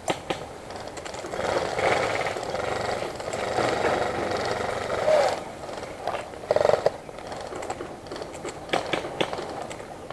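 Tall grass rustling and brushing against a gun-mounted camera as the gun pushes through it, with scattered light clicks and a short cluster of knocks about six and a half seconds in.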